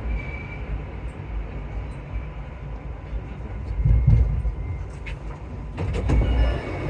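Alstom MP14 metro train standing at a station platform: a steady low rumble with a louder swell about four seconds in, then a few clicks and short high tones near the end.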